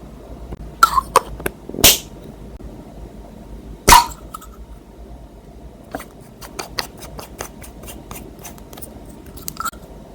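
Slime being squished and worked by hand, giving a few loud wet pops in the first four seconds, then a run of small crackling clicks.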